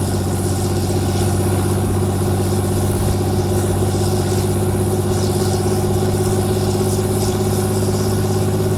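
An aircraft engine running steadily, a low hum that holds one pitch without revving.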